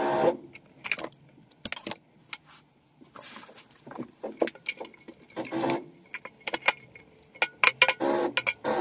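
Metal clicking and rattling as cable conductors and fittings are handled inside a metal consumer unit box, with a few short scraping squeals as cable is drawn against it, about halfway through and near the end.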